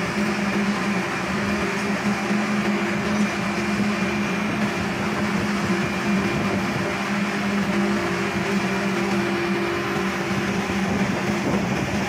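Steady mechanical drone with a constant hum, like an engine or motor running at an even speed.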